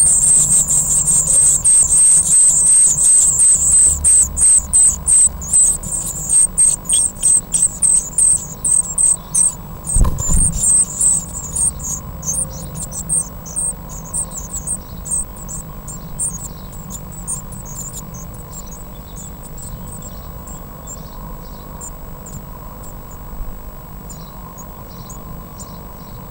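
Blue tit nestlings begging while a parent feeds them: a dense stream of very high, rapid cheeping that breaks into separate cheeps and thins out over the next dozen or so seconds, then dwindles to faint occasional calls. A single dull thump about ten seconds in.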